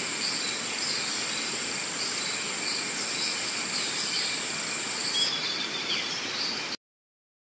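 Steady chorus of insects with a high continuous buzz that stops about five seconds in, and repeated short bird chirps over it. The sound cuts off suddenly near the end.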